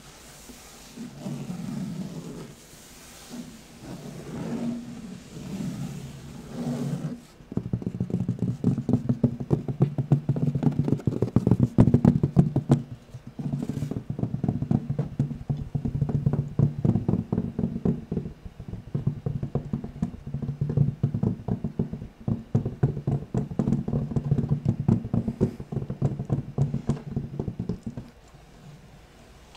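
Fabric being scratched and tapped close to the microphone. Slower, uneven strokes come first; from about seven seconds in there is fast, continuous scratching that stops shortly before the end.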